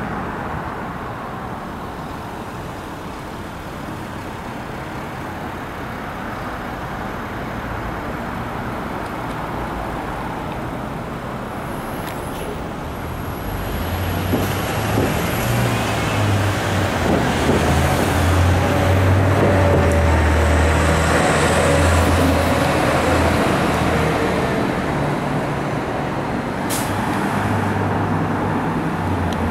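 Street traffic noise, joined about halfway through by the low engine rumble of a heavy vehicle that grows louder and stays strong for several seconds.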